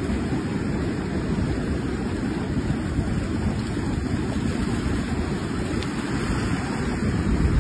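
Wind rumbling on the microphone over the wash of breaking surf: a steady, unbroken noise.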